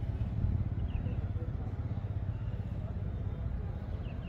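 An engine running steadily with a low, evenly pulsing rumble.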